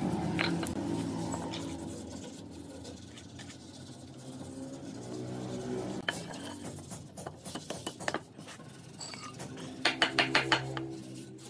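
Hammer striking a glued wooden frame joint to drive a rail into a leg block: a quick run of about six strikes near the end, after a few scattered knocks of wooden pieces being handled. A low steady hum fades out over the first few seconds.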